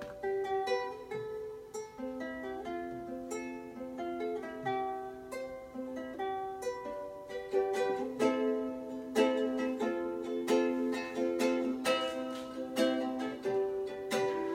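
Ukulele played solo with picked notes, turning to fuller strummed chords about eight seconds in.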